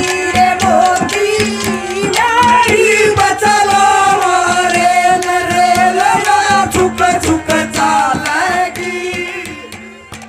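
A woman singing a Haryanvi folk song into a microphone, holding long wavering notes over hand-drum beats and a steady drone; the music fades out near the end.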